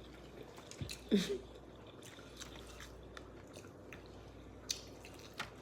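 Someone chewing food close to the microphone: soft, scattered mouth clicks and smacks, with a brief voiced murmur about a second in.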